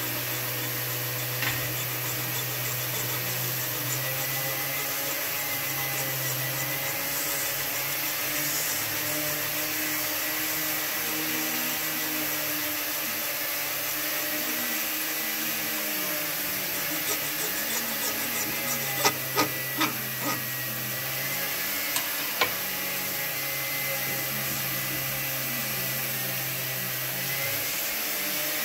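A small electric motor running steadily with a whir and hum, with a cluster of sharp clicks about two thirds of the way in.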